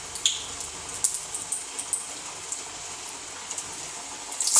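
Hot oil sizzling steadily around a keerai (spinach and lentil) vada deep-frying in a pan, a fine crackle with scattered small pops. At the very end the sizzle swells loudly as a second vada is dropped into the oil.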